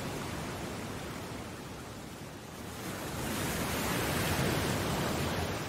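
Ocean surf: an even rush of waves that eases slightly, then swells again about three seconds in.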